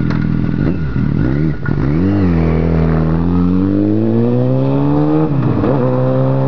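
Yamaha FZ1 inline-four engine idling, then revved and pulling away under acceleration. The pitch climbs steadily and drops briefly at a gear change about two seconds in and again past five seconds, then climbs again.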